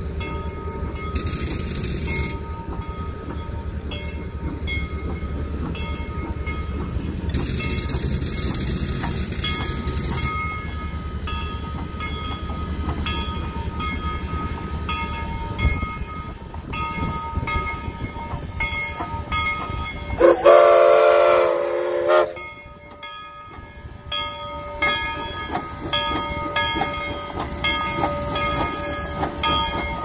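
Narrow-gauge steam locomotive 425 standing with a steady low rumble, and hissing steam released twice in the first ten seconds. Then comes one steam-whistle blast of about two seconds, the loudest sound, about two-thirds of the way through.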